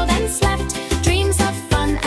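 Upbeat children's song music with a steady beat, bass and melody.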